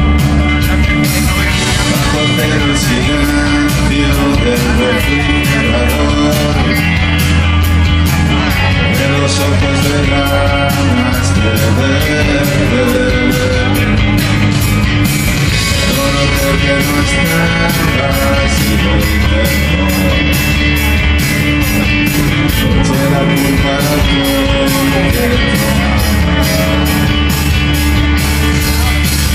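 Live rock band playing at full volume: electric guitar and drums with a steady beat, and a male voice singing.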